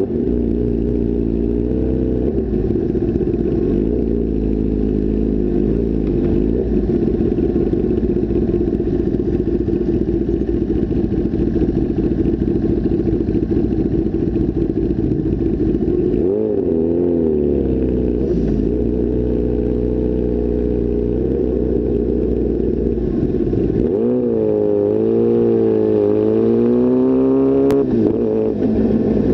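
Sport motorcycle engine running under way, its pitch sweeping up and down as the rider opens and closes the throttle, once around the middle and again more strongly near the end.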